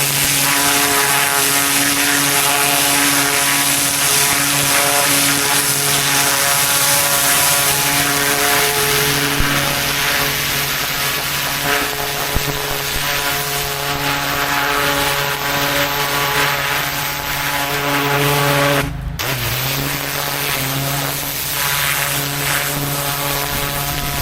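Pressure washer running steadily: the engine's even drone under the hiss of the high-pressure water spray. The sound breaks off for an instant about nineteen seconds in.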